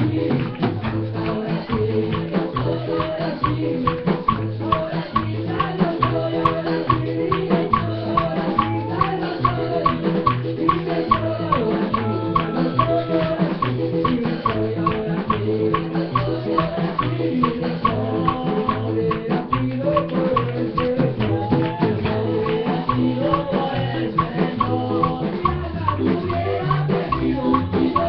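Live church worship band playing an up-tempo Pentecostal song: keyboard and drums keep a steady fast beat while voices sing along.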